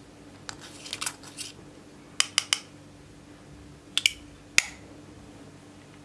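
A thin metal tool scraping crumbly pressed eyeshadow out of its pan, followed by sharp clicks of metal against the eyeshadow pan: three quick ones, then two more, then a final knock.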